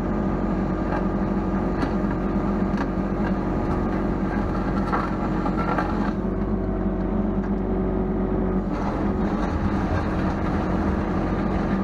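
Mini excavator diesel engine running steadily, with the hydraulics working as the bucket back-drags gravel, heard from inside the cab. One steady tone in the running stops about nine seconds in.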